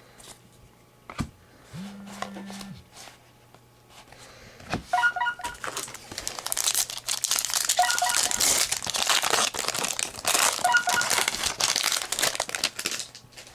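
A foil trading-card pack wrapper being torn open and crinkled, starting about five seconds in and going on with dense crackling until near the end. Before that there are only a few light clicks and handling sounds.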